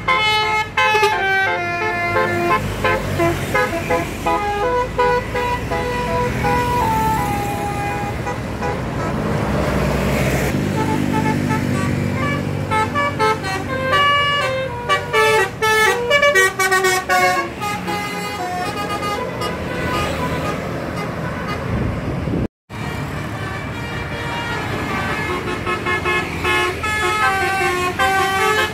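Bus telolet horns, multi-tone musical horns, playing quick melodies of short stepped notes over traffic noise. A vehicle's engine noise swells briefly near the middle, and the sound cuts out for a moment about three-quarters of the way through.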